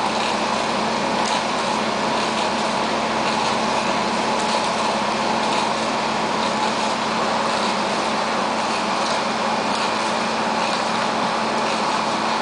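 Steady mechanical running of a wood-chip fuel receiving system, with screw augers turning in the chip bin while a delivery truck unloads, and a few faint ticks and rattles.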